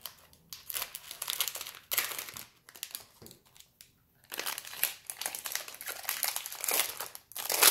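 Plastic wrapper of a large pack of baseball cards being crinkled and torn open by hand: irregular crackling, sparse at first, then busier and louder after about four seconds, with a sharp loud crinkle near the end.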